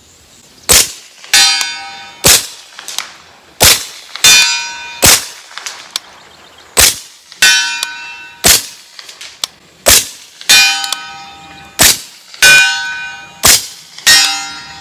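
CMMG Banshee .45 ACP pistol firing slow, deliberate single shots, about eight in all; most shots are followed about half a second later by the ringing clang of a bullet striking a steel target at 100 yards.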